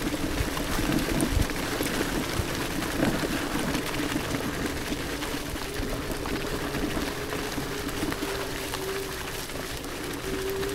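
Electric scooter riding along a leaf-covered dirt trail: a steady rush and rattle of tyres on the rough ground, with a faint whine from the 800 W motor that rises a little near the end.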